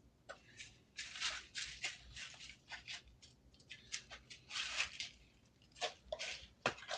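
Faint, irregular rustling and clicking: a quick run of short scratchy noises, some louder than others.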